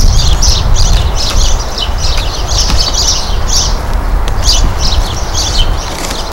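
Small birds chirping over and over, with a steady low rumble underneath and a few faint handling clicks.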